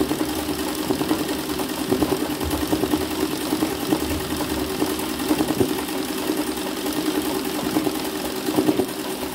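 Sewing machine running steadily at speed, its needle stitching through a hooped towel as it is guided by hand in free-motion embroidery, filling in a small area of the design.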